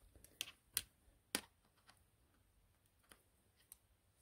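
Knitting needles clicking faintly as stitches are lifted over one another to bind off: about six light, irregular ticks, the loudest about a second and a third in.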